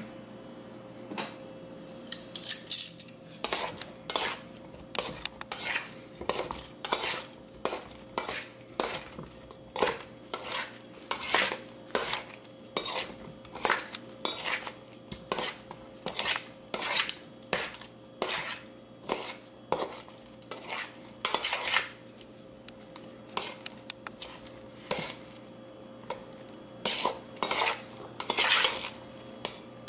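Metal tongs clinking and scraping against a stainless steel mixing bowl as cauliflower florets are tossed in a thick flour batter, a clink or two a second with a short lull about two-thirds of the way through.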